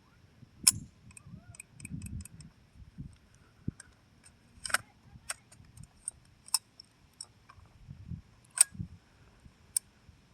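Scattered small, sharp clicks and ticks of handling, some in quick little runs and two louder than the rest, with soft low bumps between them; no gunshot.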